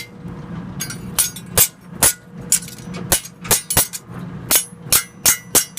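Blacksmith's hand hammer striking hot metal on an anvil while forging a trammel hook rod: about a dozen sharp ringing blows at roughly two a second, starting about a second in.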